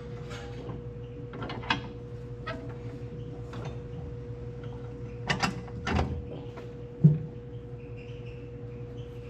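Scattered metal clinks, scrapes and knocks from hands-on work on a hay baler's mechanism, with one loud thud about seven seconds in, over a steady hum.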